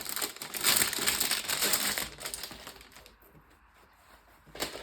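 Packaging crinkling and rustling as the storage drawers are unwrapped, dying down after about two seconds, then a single short knock near the end.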